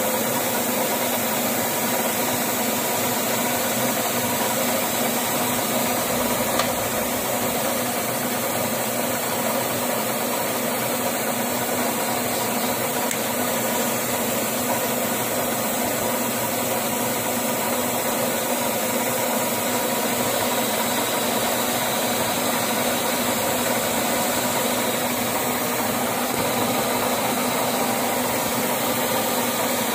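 Metal lathe running steadily while turning a steel spur gear on a mandrel, the motor and drive giving an even hum with a few steady tones.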